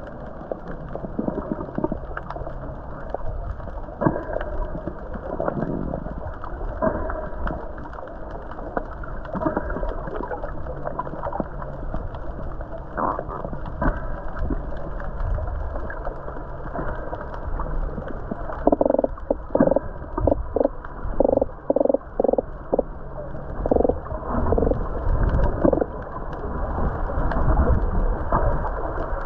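Dense, continuous underwater crackling of many fine clicks over a low rumble, which the recordist takes to be fresh water seeping up through the ocean floor. About two-thirds of the way in comes a quick run of about ten short pulsed tones.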